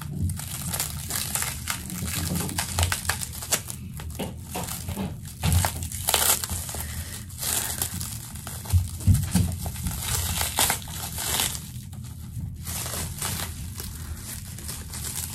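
Plant packaging crinkling and rustling as a shipped plant is unwrapped by hand, irregular handling noises with a few dull bumps around the middle.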